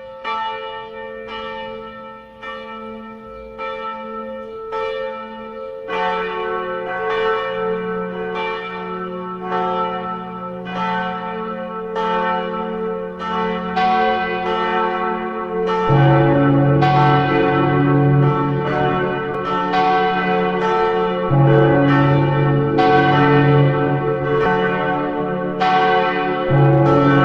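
Church bells ringing, with strokes repeating quickly and their ringing tones overlapping. A lower-pitched bell joins about six seconds in, and a deeper, louder one at about sixteen seconds, making the peal fuller and louder.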